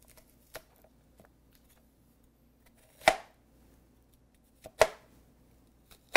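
A large knife chopping small round Vietnamese pickling eggplants (cà pháo) on a plastic cutting board. A couple of light taps come first, then three sharp chops about a second and a half apart in the second half.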